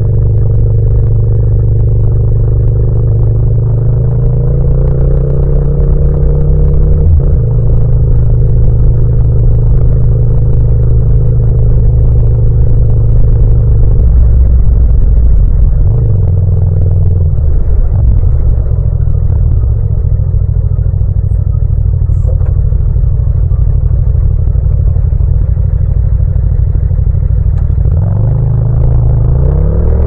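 Yamaha MT-07's 689 cc parallel-twin engine running while the motorcycle rides along in the low gears. The engine note eases off about halfway through and rises again near the end as the bike accelerates.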